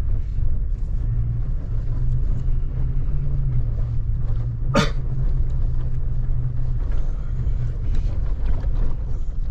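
Vehicle driving a dirt forest road: a steady low drone of engine and tyre rumble, with one sharp knock about halfway through.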